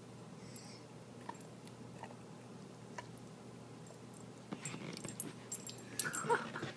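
A dog chewing a piece of salmon skin, faint scattered mouth clicks, then getting up and moving off in the last two seconds with louder rustling and clicks and the jingle of its metal collar tag.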